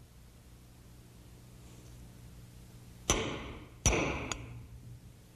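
Two sharp knocks of a metal hand tool against wood, each with a short metallic ring, about three-quarters of a second apart, followed by a faint click.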